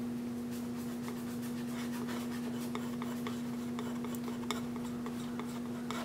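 Plastic palette knife scraping and dabbing thick acrylic paint, picking it up off palette paper and laying it onto a small wood panel in short scratchy strokes, over a steady low hum.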